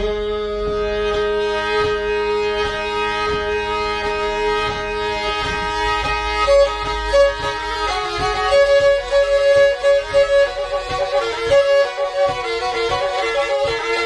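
Black Sea kemençe playing an instrumental passage of a Karadeniz folk tune: held notes over a drone at first, then quick repeated notes from about halfway through.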